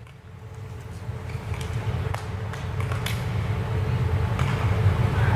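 Low steady rumble of an indoor ice arena, fading in and growing louder, with a few faint clicks and knocks.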